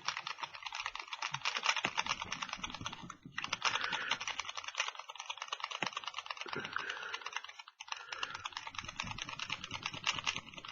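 A jiggler pick jiggled rapidly in a Master Lock No. 40 disc-detainer padlock: fast, continuous metallic clicking and rattling of the pick against the discs, pausing briefly twice.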